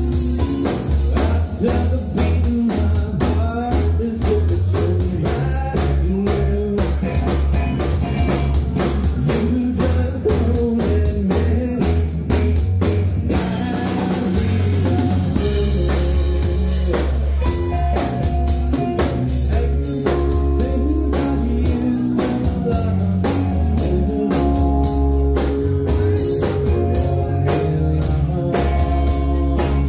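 A live band playing: electric guitar over a steady drum-kit beat, with keyboard and a heavy bass end.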